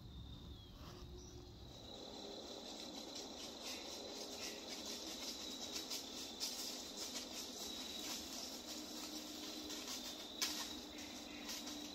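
Insects trilling steadily in a high, even tone. From about two seconds in there is a light crackling rustle in dry leaf litter, and a sharp snap comes near the end.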